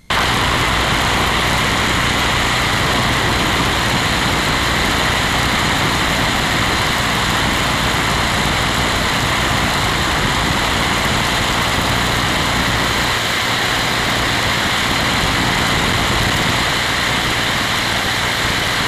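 A biplane's radial engine and propeller running steadily in cruise flight, mixed with the rush of air past the open cockpit.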